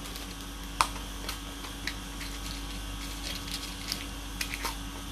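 Small clear plastic tackle box being handled, giving scattered light clicks and taps, the sharpest about a second in, over a steady low hum.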